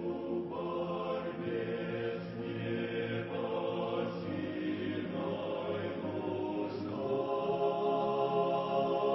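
A choir singing a slow hymn in long held chords, the harmony shifting a few times.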